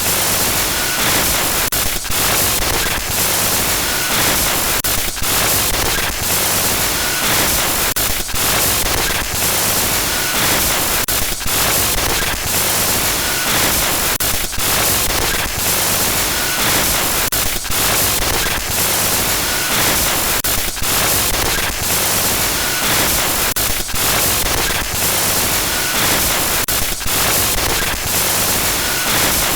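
Loud, continuous glitchy static: a dense hiss across the whole range that keeps stuttering with brief dropouts, and short high blips every couple of seconds.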